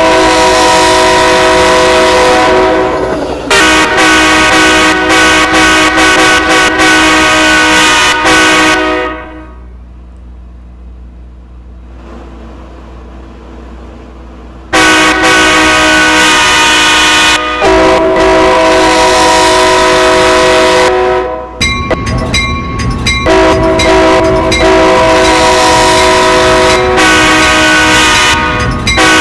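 Train's multi-note air horn sounding in long, loud blasts, a chord of several pitches held for several seconds at a time. It drops out for about six seconds a third of the way in, leaving a quieter low hum, and gives way briefly to a clicking clatter about two-thirds in before sounding again.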